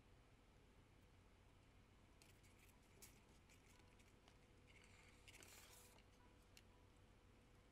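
Near silence, with faint crinkling and rustling of an aluminium-foil armature and cardboard being handled: a few light crackles a couple of seconds in and a short rustle about five and a half seconds in.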